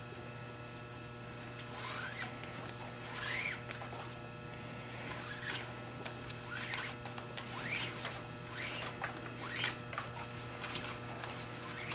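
550 nylon paracord being pulled through its loops and drawn tight around a wooden paddle handle: a series of short rising zips, roughly one a second, over a steady low hum.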